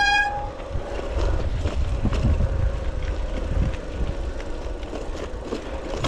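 Mountain bike rolling fast downhill on a dirt trail: wind buffets the microphone over the tyre noise, and short knocks and rattles come as the bike goes over bumps. A held pitched tone with overtones cuts off just after the start.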